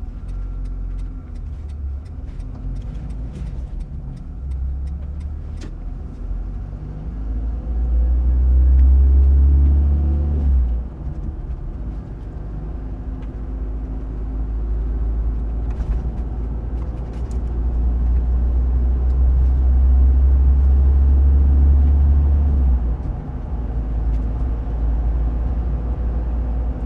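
A car driving, its engine and road noise making a steady deep rumble that swells louder twice, about eight seconds in and again from about eighteen to twenty-two seconds. Scattered sharp ticks sound over the first few seconds and again around sixteen seconds.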